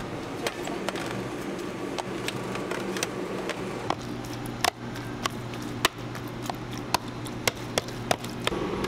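Metal spoon clicking and tapping against a plastic container as cubes of raw tuna are stirred, a scatter of sharp clicks over a steady low kitchen hum.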